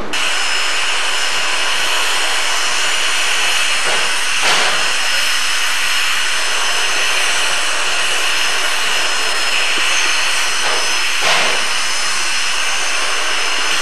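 Steady, loud hiss of steam from Feather River No. 3, a Shay geared steam locomotive, standing on the track. Two brief louder swells come about four and a half and eleven seconds in.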